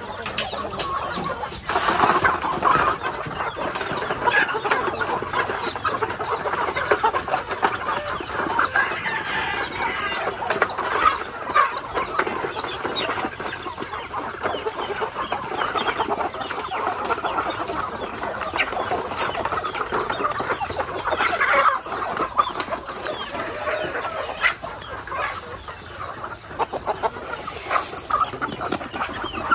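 A flock of chickens, Aseel game fowl among them, clucking and chattering continuously as they crowd in to feed.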